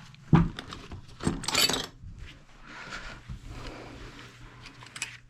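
Metal parts of a fan coil unit's blower motor assembly being handled: a string of sharp clinks and knocks, the loudest about half a second in, with a rattling stretch between about one and two seconds.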